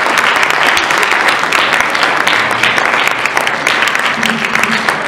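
Audience applauding at the close of a talk: loud, dense clapping that runs on steadily, with a faint voice under it near the end.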